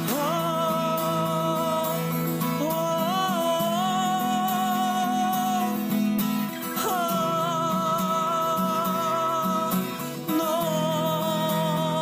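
A man singing long, drawn-out wordless vowel notes with a slight waver, over a strummed acoustic guitar. The held notes glide in near the start and again about seven seconds in.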